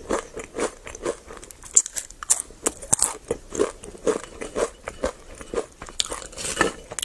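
A person chewing and biting food in a steady rhythm of about two chews a second.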